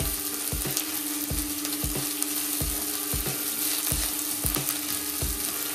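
Onions, green chillies and ginger-garlic sizzling as they fry in oil in a steel kadhai. A metal spatula stirs and scrapes through them in regular strokes, about one every two-thirds of a second, over a steady low hum.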